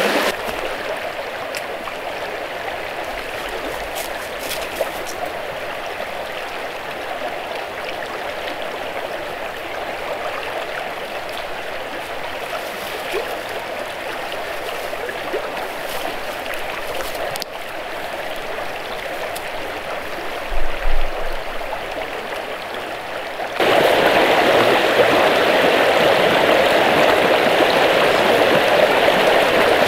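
Small river's current rushing and gurgling over rocks, a steady noise of running water that becomes suddenly louder about three-quarters of the way through.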